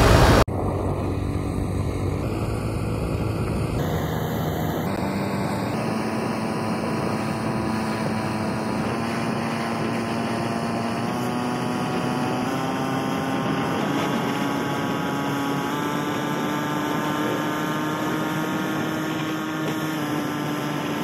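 Motorcycle engine running steadily at road speed over a haze of rushing noise, its pitch climbing slowly as it speeds up.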